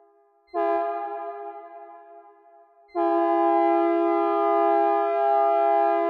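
Synthesized recreation of a Nathan P2 two-chime train horn sounding a minor-third chord. A short blast comes about half a second in and fades away with reverb. A long, steady blast starts about three seconds in and is held.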